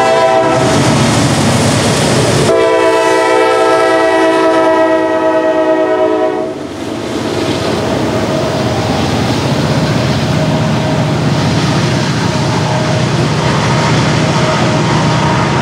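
Norfolk Southern GE AC44C6M locomotive's air horn: a blast that stops about half a second in, then a longer blast of about four seconds as the locomotive passes. After it, the train's covered hopper cars roll by with steady wheel-on-rail noise.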